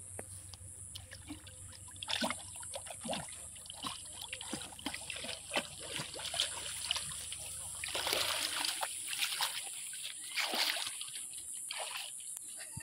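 Water splashing and trickling: a run of small, irregular splashes that get busier and louder about eight seconds in.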